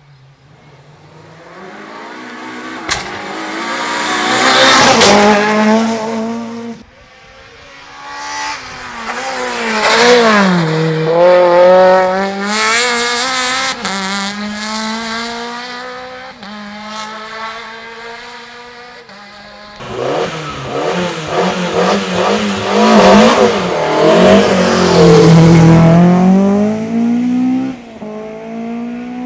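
Rally cars racing past at full speed in three separate passes. The engines rev high, drop sharply under braking and downshifts, then climb again, each pass loudest as the car goes by.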